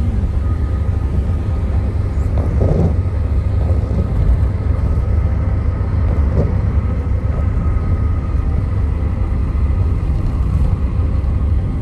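Steady low rumble of road and engine noise inside the cabin of a Daihatsu Terios automatic cruising on a highway.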